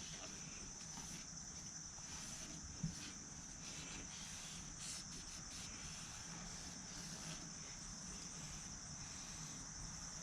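Faint steady chorus of insects, crickets trilling as one continuous high shimmer, with a single light click about three seconds in.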